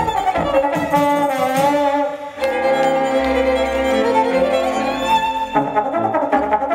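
Live orchestral music: a solo violin and a trombone play over a string orchestra. It moves busily at first, holds long notes from about two and a half seconds in, then moves again near the end.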